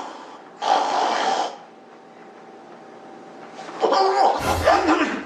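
A man imitating heavy snoring. One rasping snore comes about half a second in, then breathing stops for about two seconds, then a loud choking snort and gasp: a mimicry of sleep apnea.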